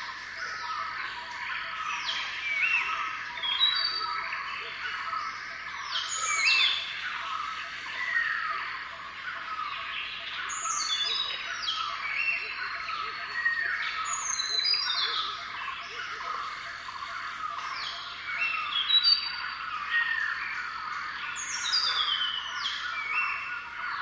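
A dense chorus of many small songbirds chirping and twittering over one another, with short whistled notes and quick downward-sweeping calls.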